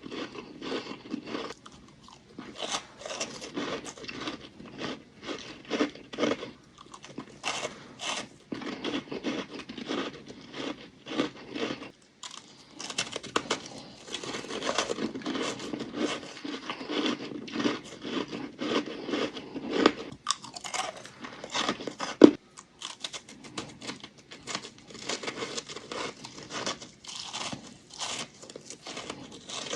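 Thin chunks of ice being bitten and crunched close to the microphone: a dense, irregular run of crisp crunches with a short lull partway through and one sharp, loud crack about two-thirds of the way in.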